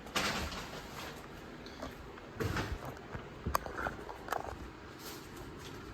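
Handling noises: a short rustle at the start, then a few scattered knocks and clicks.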